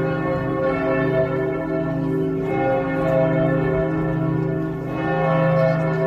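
Cathedral church bells ringing together in a continuous peal, many tones overlapping without a break.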